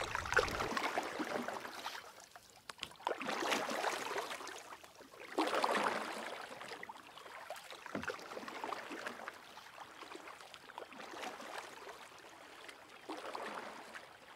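Water lapping and splashing in uneven swells a second or two apart.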